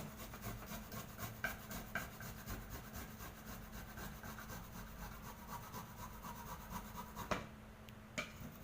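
Fresh ginger root being rubbed by hand across a grater: a steady run of quick rasping strokes, with two sharper knocks near the end.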